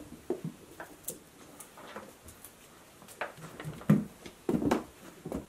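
Potatoes being sorted by hand: scattered knocks and thuds as potatoes are tossed into a plastic tub and set down on a stainless steel table, the loudest a little before four seconds in and again just after.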